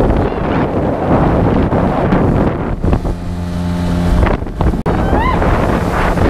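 Small tiller outboard motor on a jon boat running under way, a steady low hum under heavy wind buffeting the microphone.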